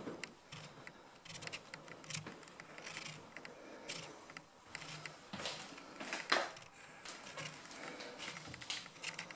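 Footsteps walking at an even pace, with scattered small clicks and knocks of movement, and one sharper knock about six seconds in.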